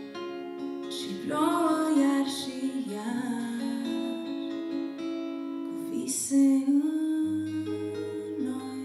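A woman singing a slow folk song while accompanying herself on a plucked acoustic-electric guitar. Her voice comes in about a second in and carries over the guitar until near the end, when low guitar notes come in under it.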